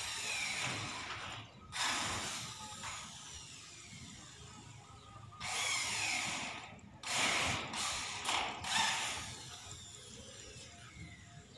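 Rasping, ratchet-like metal sounds in four bursts, some with a falling whine, as a hand-worked mechanism on a lightweight steel truss roof frame is operated.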